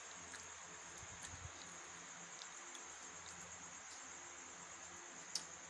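Faint background noise: a steady high-pitched whine over hiss, with a few faint clicks.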